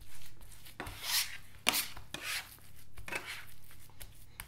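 Seasoned lamb-and-beef mince being pressed and scraped across an end-grain wooden butcher block: a string of irregular wet rubbing and scraping strokes as it is worked into a flat round.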